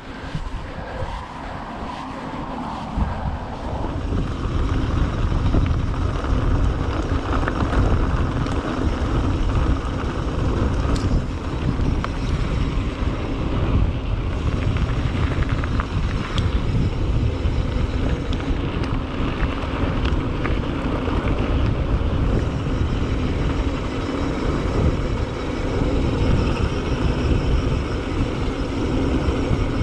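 Mountain bike riding along a trail: steady wind rumble on the microphone mixed with tyre noise, with a few brief clicks and rattles from the bike. It grows louder about three seconds in.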